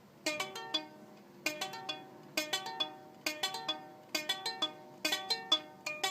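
Nylon-strung plucked string instrument being played in a repeating pattern: short runs of quick plucked notes, a new run about once a second.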